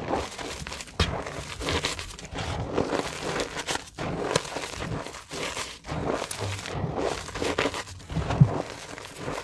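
Crumbled gym chalk being pressed and squeezed by rubber-gloved hands: soft, uneven crunching and crumbling of powder and small lumps, a stroke about every second. A louder thump comes near the end.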